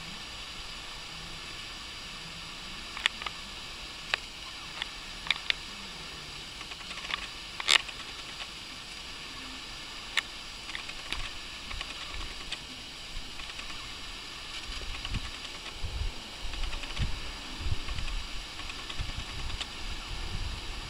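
Steady background hiss with a few sharp, brief clicks scattered through the first half, one louder than the rest, and irregular low rumbles in the second half.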